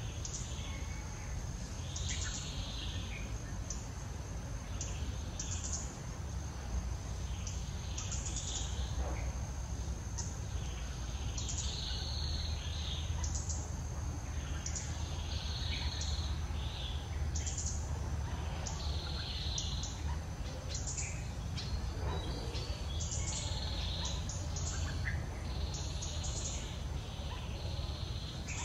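Outdoor ambience of birds chirping in short calls every second or two, over a steady thin high insect whine and a low rumble.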